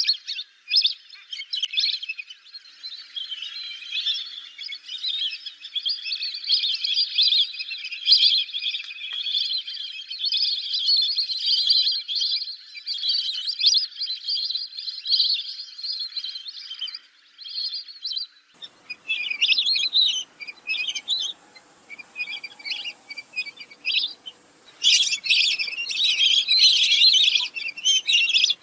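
Lesser whistling ducks giving high-pitched whistled calls, many overlapping in a continuous chatter at first. About two-thirds of the way through, the calls turn into separate bursts, with the loudest run near the end.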